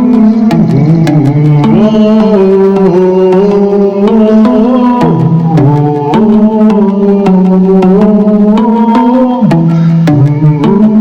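Instrumental music: a sliding melodic line over a steady pattern of hand-drum strokes.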